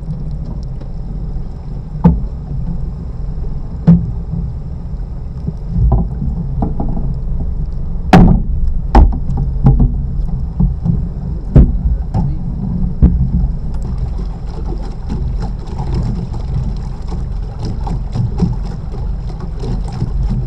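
Steady low drone of an electrofishing boat's machinery running, with a thin high tone over it. Irregular sharp knocks sound on the boat every second or two, the loudest about eight seconds in.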